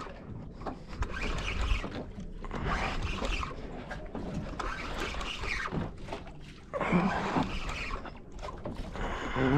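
A spinning reel being cranked as a fish is reeled up, under irregular wind and water noise.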